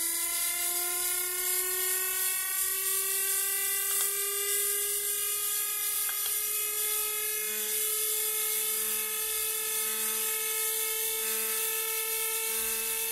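Bedini recovery-circuit motor spinning up toward about 28,000 rpm, a steady whine that rises slowly and smoothly in pitch over a high hiss.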